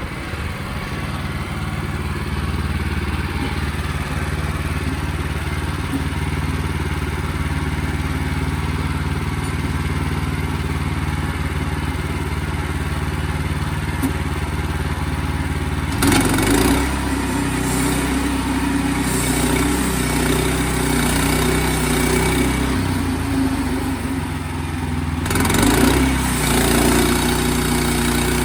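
Portable band sawmill running: its engine drones steadily, and about halfway through a harsher, hissing noise from the blade joins it, changing again near the end.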